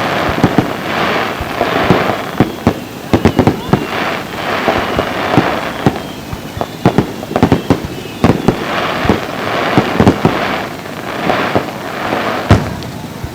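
Fireworks going off: a rapid run of sharp bangs mixed with crackling swells that rise and fade about once a second, the loudest bang near the end.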